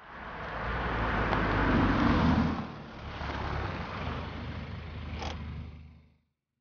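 BMW coupe driving up and pulling in to the kerb: engine running with tyre noise, loudest over the first two and a half seconds, then steadier and lower until it cuts off about six seconds in. A short click about five seconds in.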